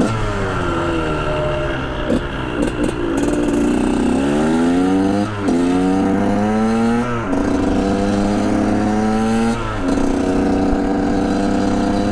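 KTM 125 SX single-cylinder two-stroke engine on the move: revs falling off the throttle for the first few seconds, then climbing hard through the gears, with three upshifts, each a short drop in pitch, before holding a steady high pitch near the end.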